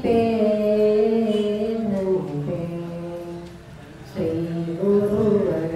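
An elderly woman singing a Kannada devotional song solo into a handheld microphone, in long held notes. One phrase drops in pitch about two seconds in and fades, and a new phrase begins about four seconds in.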